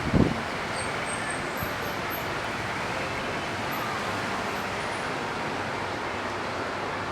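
Steady rushing background noise with no clear pitch, broken by one brief low thump just after the start.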